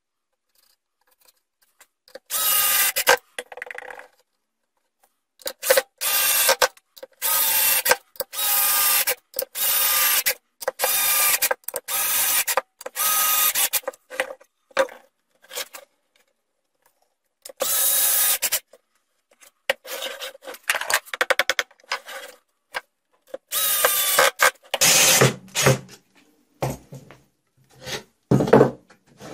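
A 12 V cordless drill-driver running screws into wood in a string of short bursts, each under a second. Some bursts drop in pitch as a screw seats. Near the end come lower knocks from the wood being handled.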